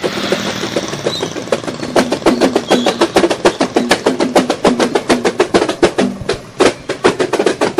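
Background music with fast, busy drumming over pitched notes.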